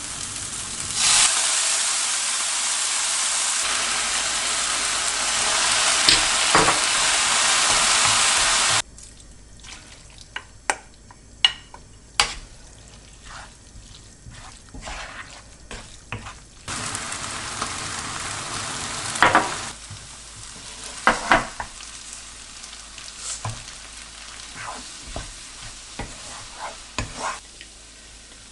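Food sizzling in a frying pan in two stretches, each cut off suddenly, with scattered clicks and knocks of utensils between them.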